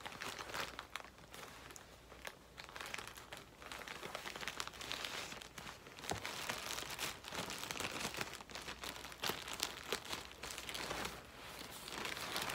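Pink plastic mailer bag crinkling and rustling as it is cut open with scissors and pulled apart by hand, with scattered sharp clicks and irregular bursts of rustle.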